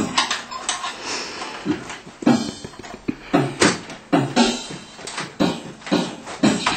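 Background music with a strong, fairly regular beat.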